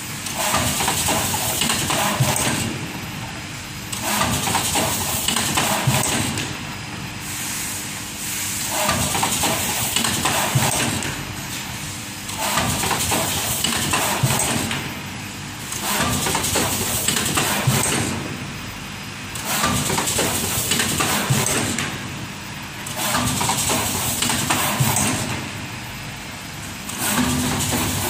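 Semi-automatic rigid box folding machine cycling. A loud mechanical run of two to three seconds, then a lull, repeats about every four seconds as each box is formed.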